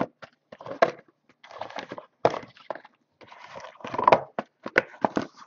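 Packs being pulled out of a Topps Museum Collection baseball card box by hand: irregular cardboard scraping and rustling, with several sharp taps and knocks.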